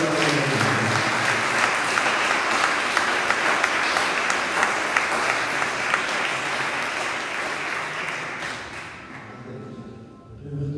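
Audience applauding: a dense, steady patter of many hands clapping that tapers off and dies away about nine seconds in.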